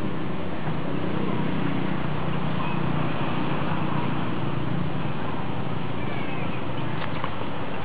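Steady rumbling background noise, with a couple of faint short high chirps and a sharp click near the end.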